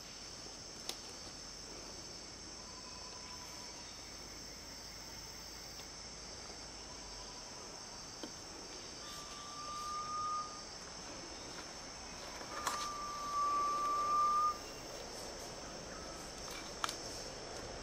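Garnet pitta giving long, drawn-out single whistles, four in all, the last two the loudest and clearest, over a steady high drone of forest insects. A few sharp clicks.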